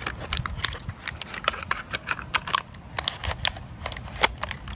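Thin clear plastic being cut with a knife and worked in the hands to shape a makeshift spoon: irregular sharp crackles and clicks, several a second.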